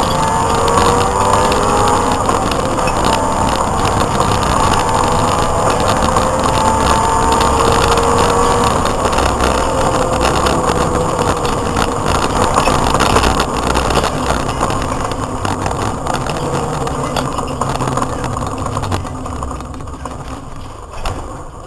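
Opel Astra 2.0 16V GSi rally car heard from inside the cabin at speed: the engine revs rise and fall as it is driven hard, over heavy road noise. Near the end the engine is backed off and the sound drops away.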